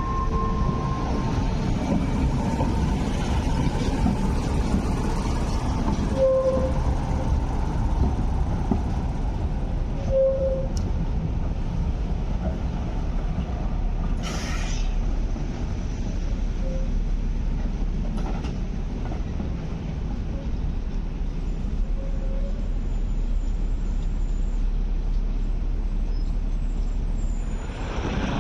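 A Hong Kong Light Rail Phase 1 car rolling slowly past and away over depot trackwork: a steady rumble of wheels on rail. A few short tones sound along the way, and there is a brief hiss about halfway through.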